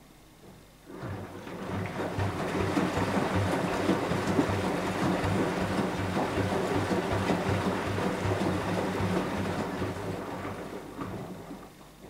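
Beko WMY 71483 LMB2 front-loading washing machine turning its drum during the wash, tumbling wet laundry through sloshing water. The turn starts about a second in, runs steadily, and dies away near the end as the drum stops.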